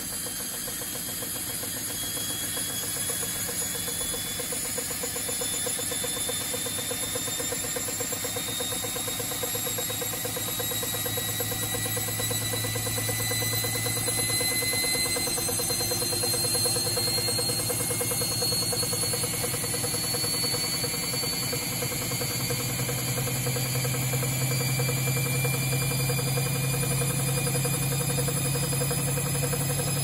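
Baumatic washer dryer spinning a load of rags: a steady motor hum and cabinet vibration, with a motor whine that slowly rises in pitch as the drum speeds up, and the hum stepping up louder and higher about two-thirds of the way through.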